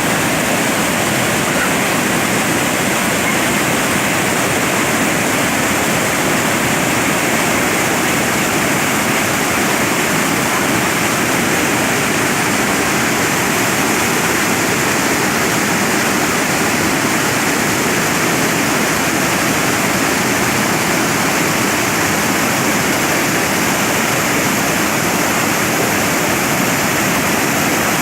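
Loud, steady rush of water pouring over the Cachoeira de Emas falls on the Mogi-Guaçu river.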